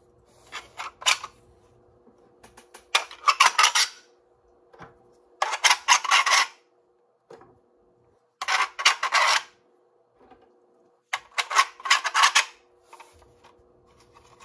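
Rapid clicking and rattling of 3D-printed plastic blaster parts being handled, in five bursts of about a second each.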